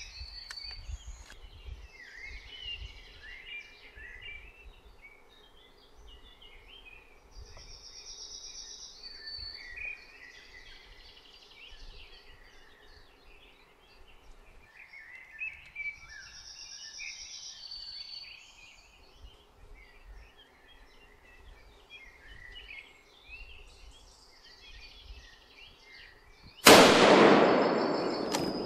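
Songbirds chirping over a quiet woodland background. Near the end comes a single loud shot from a Winchester Model 1895 lever-action rifle in 7.62x54R, which cracks and rolls away in a long echo, followed by a few sharp clicks.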